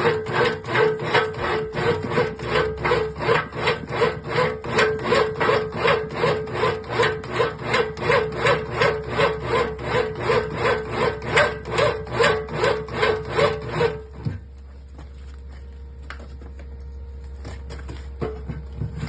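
Homemade drill press running, with a loud rhythmic scraping or rubbing about three times a second over a steady motor hum; about three-quarters of the way through the scraping stops and only the motor hum remains.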